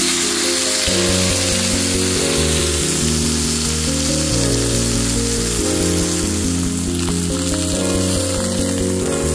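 Thick chuck eye steak searing in a hot cast iron skillet, sizzling loudly and steadily. Background music plays under it.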